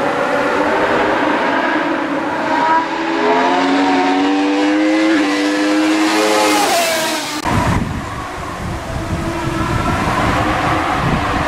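Race car engine accelerating hard up a hill-climb course, its pitch rising steadily as it approaches and passes. About two-thirds of the way through the sound cuts off abruptly. What follows is a rough low noise with a fainter engine in it.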